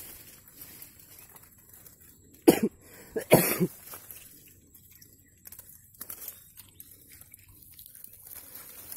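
A person coughing twice in quick succession, a short cough followed by a longer one.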